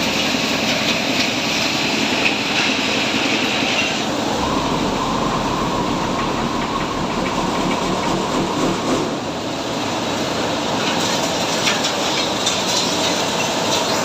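Twin hammer mill running with a continuous, loud rattling din. About four seconds in the sound shifts, and a thin whine rides on it for several seconds.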